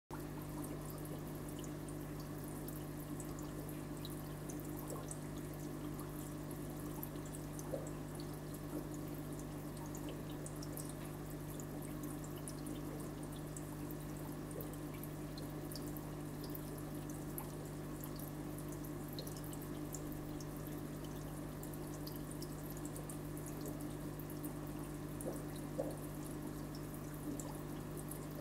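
Aquarium water trickling and dripping over a steady low hum, with a few faint clicks.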